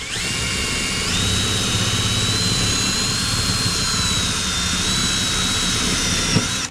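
Power drill running steadily with a high whine while driving a number 10 3/4-inch metal screw. The whine steps up in pitch about a second in and cuts off suddenly at the end.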